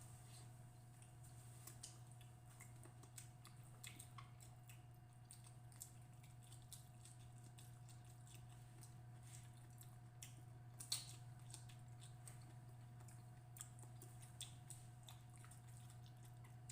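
Faint chewing and wet squishing of people eating fish and rice with their bare hands, with scattered small clicks and one sharper click about eleven seconds in, over a steady low hum.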